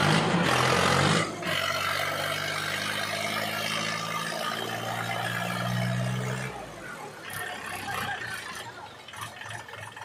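Sonalika DI 42 tractor's diesel engine running at a steady pitch, after a loud rushing noise in the first second or so; the engine note grows louder around five to six seconds in, then drops away suddenly about six and a half seconds in.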